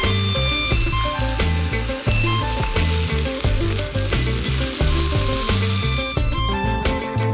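Food sizzling and frying in a pan, with a steady hiss that fades out about six seconds in, over background music with a bass line.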